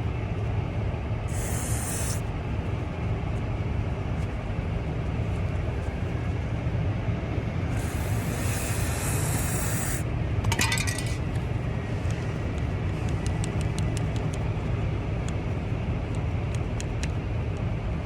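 Two hissing sprays from an aerosol can of dry lubricant: a short one about a second in and a longer one of about two seconds near the middle, followed by a brief rattle and a few light clicks. A steady low rumble runs underneath.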